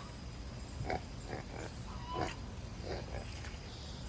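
Domestic pig giving a run of short grunts, about one every half second.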